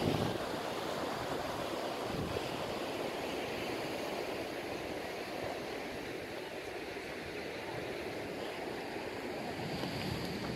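Sea surf washing against the rocks in a steady rush, with wind buffeting the microphone in gusts, twice in the first few seconds.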